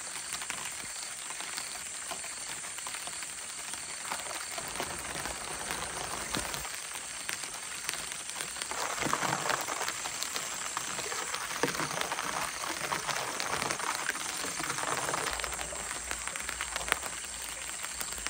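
Light rain falling, a steady hiss with crackling that grows louder for several seconds about halfway through.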